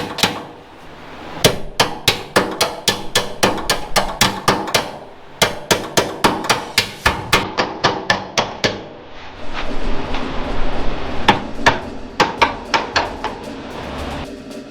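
Runs of hammer blows on the bent sheet-metal radiator core support, about three sharp strikes a second with brief pauses, as the kinks are beaten out of it.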